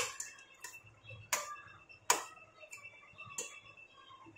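A metal spoon knocking against the sides of an aluminium pressure cooker while pressure-cooked potatoes and vegetables are mashed in it: sharp clinks at irregular intervals, the loudest about two seconds in.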